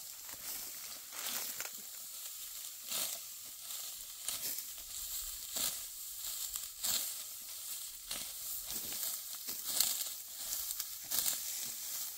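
Dry wheat stalks crunching and rustling in irregular strokes, roughly one a second, as they are cut and gathered by hand.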